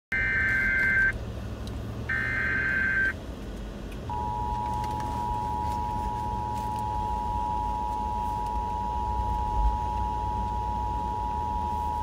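Emergency Alert System tones on FM radio through a car's speakers: two one-second bursts of the warbling digital data header, a second apart, then from about four seconds in the steady two-tone attention signal held for about eight seconds. A low hum from the car runs underneath.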